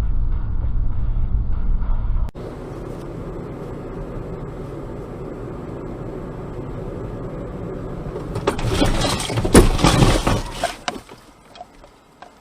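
Car road noise, then a loud vehicle collision about nine seconds in: several sharp impacts and breaking, crunching sounds that die away within about two seconds. Before that, a louder low rumble from the previous clip cuts off abruptly about two seconds in.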